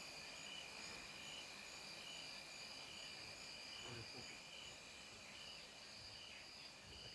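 Faint chorus of insects in the bush: a steady high trill with short, even chirps repeating at the same pitch, under twice a second.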